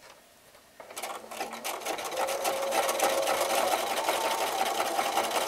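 Bernina activa 240 electric sewing machine starting up about a second in, picking up speed and then running steadily as it zigzag-stitches over garden netting: a motor whine under rapid needle ticking.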